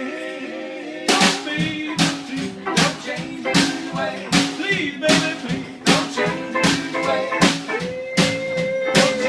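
Live blues-style band music: electric guitar lines with bent notes over a drum kit playing a steady backbeat, with a long held note near the end.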